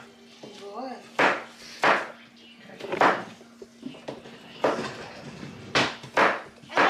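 Kitchen clatter: a string of about seven sharp knocks and clacks from utensils and cookware being handled, over a steady low hum.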